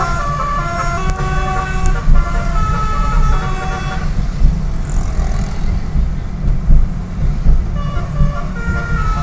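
Telolet bus horn playing a melody of stepping multi-tone notes over steady engine and road rumble; the horn stops about four seconds in and starts again near the end.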